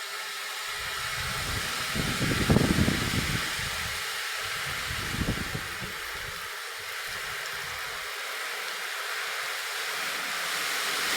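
Storm of heavy rain and strong gusting wind: a steady hiss of rain with irregular gusts rumbling on the microphone, the strongest about two to three seconds in.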